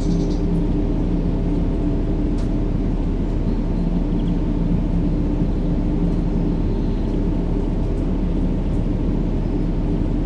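A steady, deep rumbling drone with a faint hum in it, played as continuous sleep noise for a baby, with a few faint bird chirps above it.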